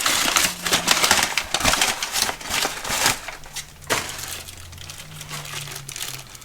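Paper packaging crinkling and rustling as it is handled, with many small clicks. A single sharp click comes about four seconds in, and the handling is quieter after it.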